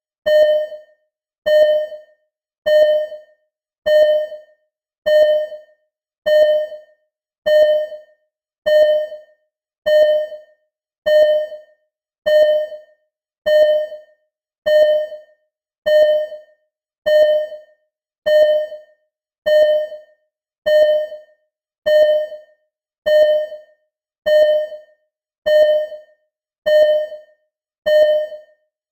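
Heart monitor (ECG) beeping steadily in a regular rhythm, a little under one beep a second. Each beep is a short mid-pitched tone that fades away quickly.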